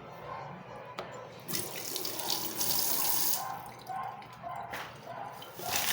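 Kitchen tap running water into the sink. It is turned on about a second and a half in, off about two seconds later, and on again near the end.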